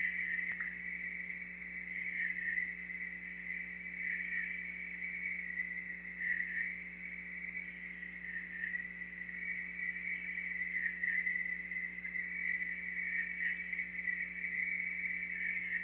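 Night insects chirring in a steady, high, wavering trill over a low steady hum, with one faint tick about half a second in.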